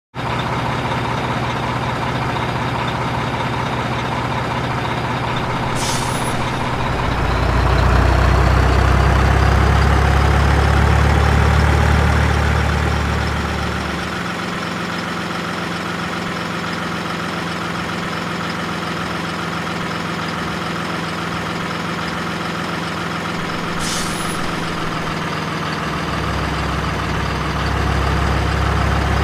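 Diesel truck engine running steadily. About seven seconds in it revs up and gets louder, and it drops back to a lower, even run a few seconds later. Two short hisses of air are heard, one just before the rev and one near the end.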